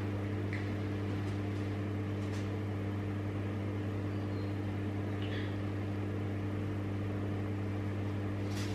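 A steady low hum with several even overtones that stays the same throughout, with a few faint, soft rustles.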